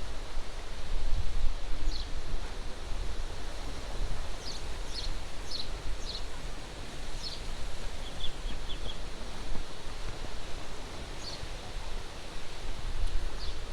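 Wind buffeting the microphone in uneven gusts over a steady outdoor hiss, with short high chirps several times.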